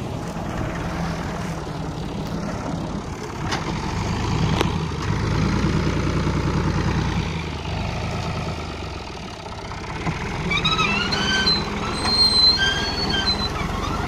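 Tractor engine running steadily under load while driving a front-mounted wheat reaper through standing wheat. A high whistling sound that rises and falls in pitch comes in about ten seconds in and lasts about three seconds.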